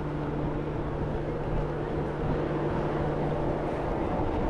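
Steady low mechanical hum with a rumble beneath it; a steady tone within the hum cuts out near the end.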